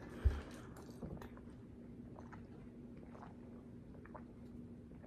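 Faint, scattered mouth clicks and smacks close to the microphone, with one short low thump about a quarter second in.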